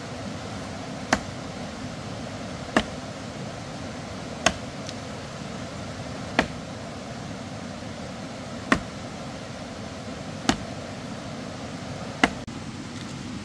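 Slow, regular chopping: seven sharp single strikes of a blade, about one every two seconds, over a steady background hiss.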